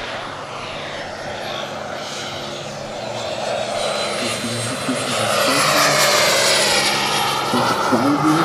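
Turboprop engine and propeller of a radio-controlled Pilatus PC-21 scale model on a low pass: the turbine whine and propeller noise grow louder to a peak about six seconds in, the whine's pitch rising as it approaches and dropping as it passes.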